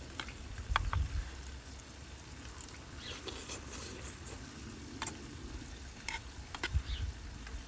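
Food sizzling on a grill, with scattered sharp clicks of utensils and a low rumble of wind on the microphone.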